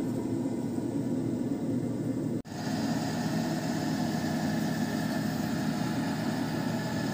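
Steady mechanical hum of a running workshop machine, which cuts out for an instant about two and a half seconds in.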